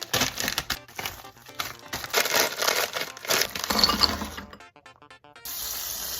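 Plastic packaging crinkling and rustling in quick, irregular bursts over background music. About five and a half seconds in, a steady hiss begins and stops abruptly.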